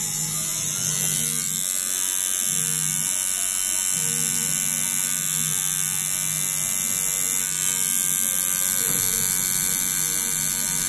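Tattoo machine buzzing steadily while its round liner needle runs along the outline of a tattoo on skin.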